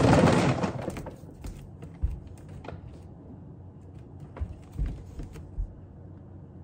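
A short loud rattling rush about the first second as dry dog food is poured into a ceramic dog bowl, followed by a few faint scattered clicks and taps.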